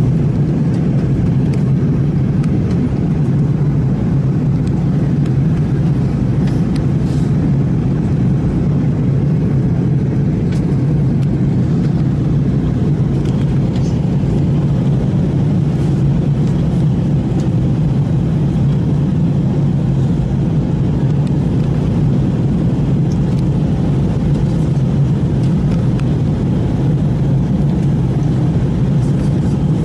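Steady low drone inside an airliner cabin in flight: engine and airflow noise heard from a window seat while the plane descends toward landing.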